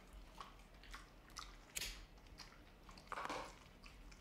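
A large dog eating from a stainless-steel bowl: faint, irregular chewing, crunching and clicking, loudest a little past three seconds in.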